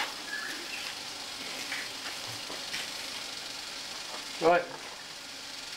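Food sizzling steadily on an electric barbecue hotplate, with a short voice sound about four and a half seconds in.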